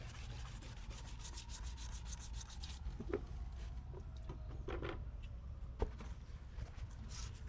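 Wet 400-grit sandpaper rubbed back and forth on ATV plastic, in quick repeated strokes. The strokes pause about three seconds in, with a few light taps, and start again near the end.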